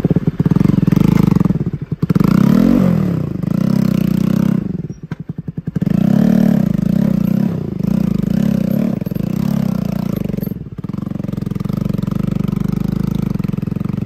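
Bajaj Pulsar NS200's single-cylinder engine running loud under way through a knocked, damaged silencer that makes it very loud. Its speed rises and falls with the throttle, drops to a slow putter about five seconds in, then runs steadily again.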